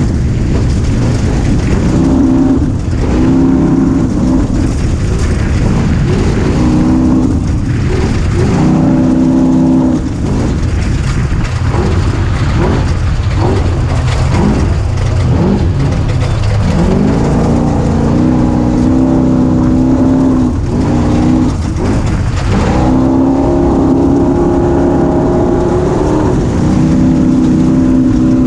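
A 250 cc engine being ridden under throttle, its note holding steady for a few seconds, then dropping away and coming back up as the throttle opens and closes. A rougher, uneven stretch in the middle ends with the note rising again about 17 seconds in. A heavy low rumble, typical of wind on an action camera, runs underneath.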